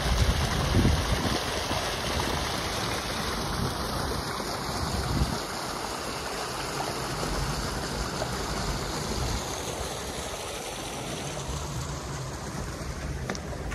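Swollen, fast-flowing river water rushing steadily, with gusts of wind on the microphone.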